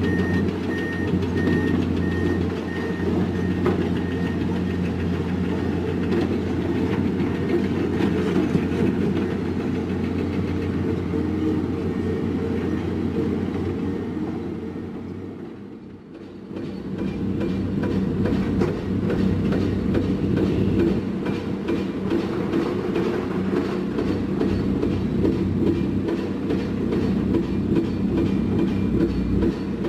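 Diesel engines of heavy construction machinery running steadily, with a reversing beeper pulsing for the first few seconds. The sound drops away briefly about halfway through, then the engine noise carries on.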